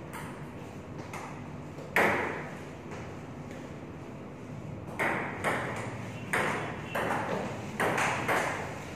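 Table tennis ball clicking against paddles and the table in a rally, sharp clicks about two a second. A single click comes about two seconds in, and the rally runs from about five seconds in.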